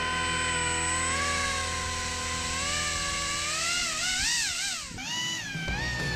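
Pro Boat Aerotrooper RC airboat's electric motor and air propeller whining. The pitch holds steady, then rises and falls with the throttle, dips sharply about five seconds in, and glides down near the end.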